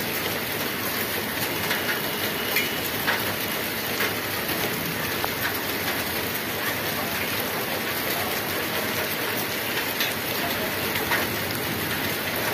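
Heavy rain falling steadily on wet asphalt and puddles: an even hiss with frequent sharp ticks of single drops splashing close by.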